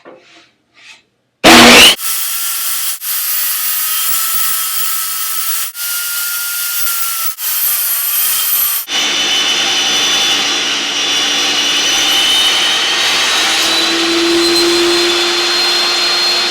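Table saw running and ripping a pine board into strips: a steady, loud power-saw noise with a steady whine. It starts with a very loud burst about a second and a half in, breaks off briefly a few times, and changes pitch partway through.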